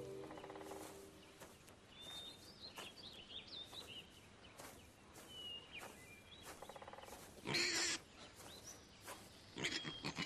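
Faint woodland sound: small bird chirps, light rustling and clicks in the undergrowth, and two short harsh snorts from wild boar, one about three-quarters of the way through and another near the end.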